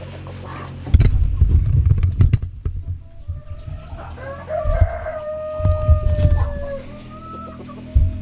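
A rooster crows once, a long call beginning about four seconds in and lasting a couple of seconds. Loud low thumps and rumbling run underneath, strongest about a second in.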